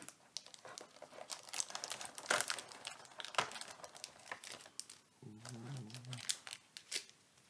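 Crinkling and crackling of plastic and foil Pokémon card packaging being handled, with a short low hum about five seconds in.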